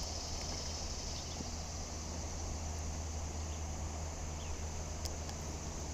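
Steady high-pitched insect chorus, with a low steady hum underneath and a couple of faint ticks near the end.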